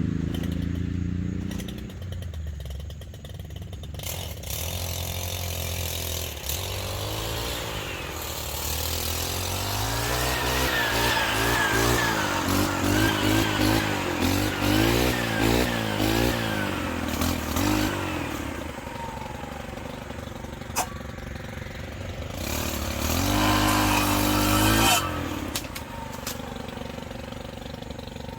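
Stihl FS 111 R brushcutter with a saw blade, its small engine revving up and down while cutting tree branches. The pitch wavers and sags as the blade bites, and it revs high again near the end.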